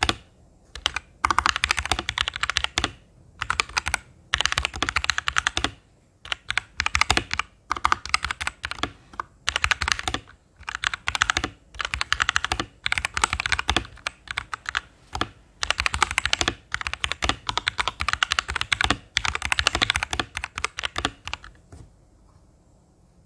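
Typing on a mechanical keyboard with lubed Kailh Box Red linear switches, rapid clacks in bursts of a second or two with short pauses between them. Every key is bottomed out, so each stroke ends in a firm clack.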